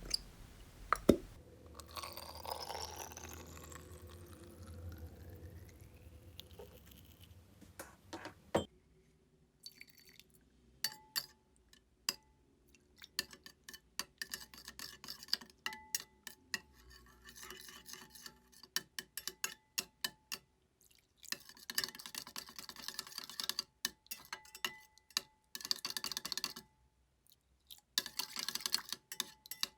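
Clear slime being made: a liquid is poured or swirled in a container for the first several seconds, then, after a sharp tap, comes a long run of small sticky clicks and squelches as the slime is stirred and worked.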